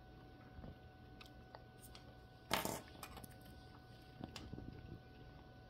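Faint handling noises of costume jewelry being picked up and turned over: scattered light clicks, with one short, louder handling sound about two and a half seconds in and a few more small clicks near the end.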